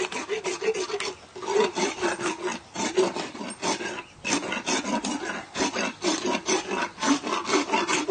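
Equine dental rasp filing a horse's bottom molars in rapid back-and-forth scraping strokes, about four a second, with brief pauses about a second in and about four seconds in. It is taking the sharp points off the inside edges of the teeth.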